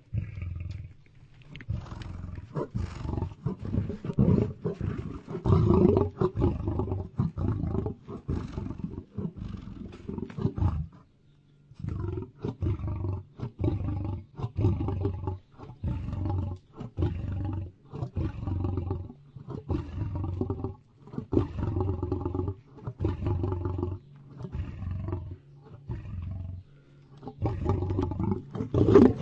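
Lion roaring: a long series of short, low roaring grunts repeated about once or twice a second, with a brief pause about eleven seconds in.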